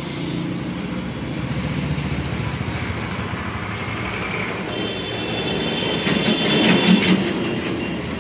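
Electric hair clipper running with a steady buzz while cutting hair, growing louder for a moment about six to seven seconds in.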